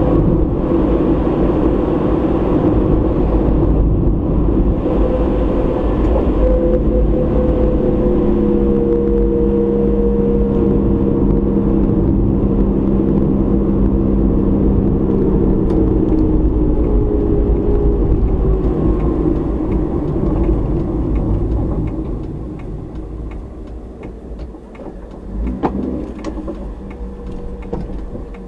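A car driving, heard through a dashcam: steady engine and road noise with engine tones that slowly fall in pitch. It eases off and grows quieter about two-thirds of the way through, with faint regular ticking near the end.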